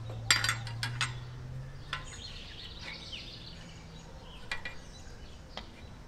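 Light metallic clinks and taps as a steel idler-pulley bracket and its pulley are handled and fitted against a steel sawmill frame: a quick cluster of clinks in the first second, then single ones spread through the rest. A faint steady low hum runs underneath.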